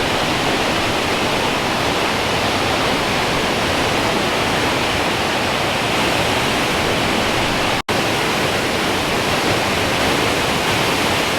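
Powerful waterfall, swollen by storm rain, as a loud, steady rush of falling water heard close to the base of the falls. The sound drops out for an instant about eight seconds in.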